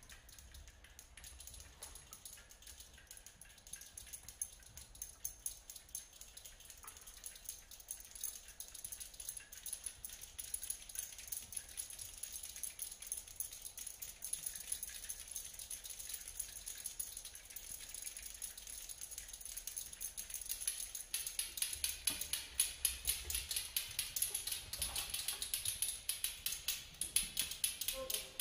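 A quiet passage of contemporary ensemble music made of dense, rapid soft clicks and tapping noises from the instruments' extended techniques. About three-quarters of the way through, the clicking grows louder and denser.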